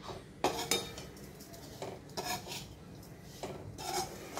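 Perforated steel ladle scraping and clinking against a steel kadhai as it stirs semolina and sugar, in a series of irregular strokes.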